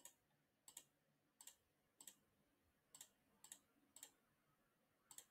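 Faint computer mouse clicks, about eight of them at irregular intervals, each a quick press-and-release pair of ticks.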